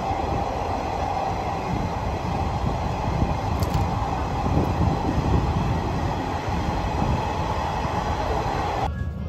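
Running noise of a passenger train heard from inside the car: a steady rumble with a constant hum. It drops away suddenly near the end.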